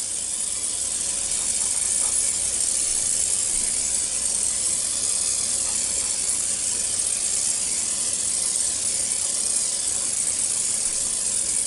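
Hand-held oil sprayer misting olive oil over a whole chicken: one long, steady hiss of spray that stops abruptly.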